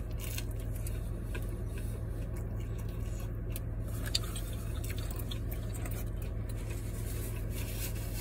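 A man chewing a bite of chicken nugget with his mouth closed: soft chewing with small scattered clicks and squishes, one slightly louder click about four seconds in. A steady low hum runs underneath inside the car.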